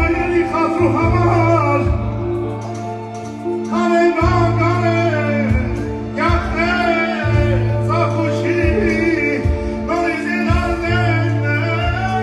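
A man singing an Armenian song live into a microphone, in ornamented phrases that bend and slide between notes, backed by a band with keyboard, whose long held bass notes change every couple of seconds.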